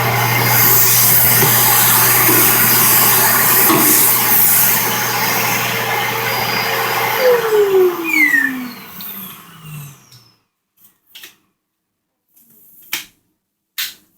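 Dyson vacuum cleaner running steadily, then switched off about seven seconds in; the motor's whine falls in pitch as it spins down over the next few seconds. A few short knocks follow near the end.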